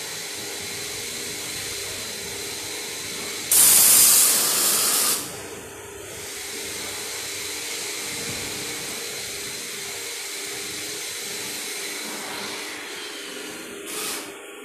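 Pressure-washer gun spraying water onto a car's alloy wheel, rinsing the rim cleaner off: a steady hissing spray with a faint steady hum under it. About three and a half seconds in, the spray turns much louder for about a second and a half.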